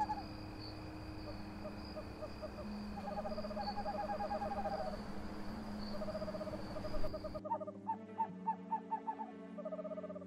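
Night ambience of an owl calling in runs of quick, evenly repeated short notes over a steady high whine. The background changes abruptly about seven seconds in while the calls go on.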